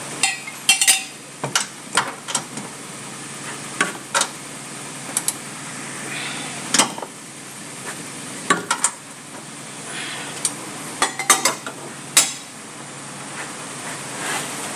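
Spanners clinking and knocking against the bolts and metal of a Toyota Avanza's front lower control arm as it is fitted: scattered sharp metallic clicks, several in quick clusters.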